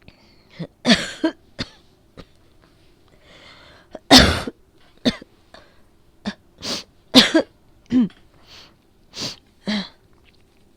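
A woman with a cold coughing repeatedly, about ten short coughs in uneven bursts, the strongest about four seconds in. It is a phlegmy cough from a head cold that began with a sore throat.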